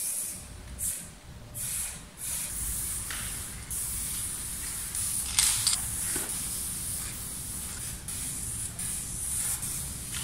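Aerosol spray paint can hissing as letters are sprayed onto a wall: a few short bursts at first, then longer, nearly continuous strokes broken by brief pauses, with one louder burst about halfway.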